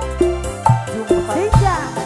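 Live dangdut band music: steady drum beats under a melody that glides and wavers in pitch.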